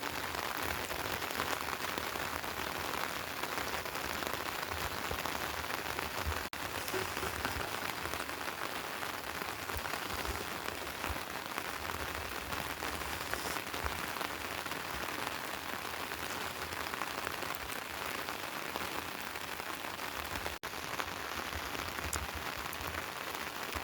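Steady rain falling, a dense, even patter of raindrops.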